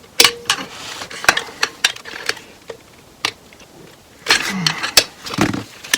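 Metal tools clicking and scraping against a thick snap ring as it is worked out of its groove inside a 4L65E automatic transmission, in a run of irregular sharp clicks.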